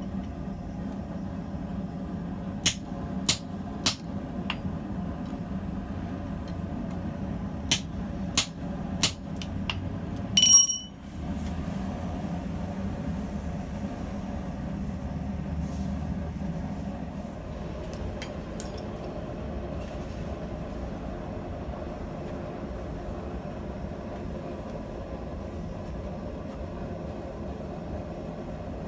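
Hammer blows on steel at the anvil, two groups of three sharp strikes, then one loud ringing clang of metal about ten seconds in. A steady low hum runs underneath throughout.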